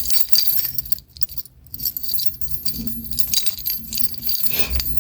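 A bunch of keys jangling, with small metallic clicks and a brief pause a second or so in.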